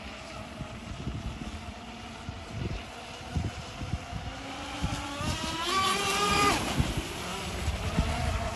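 Flowmaster Mini CAT 920EP radio-controlled catamaran running: a steady motor whine that climbs steeply in pitch about five seconds in as it speeds up, then cuts off suddenly a second and a half later. Wind buffets the microphone with low rumbles throughout.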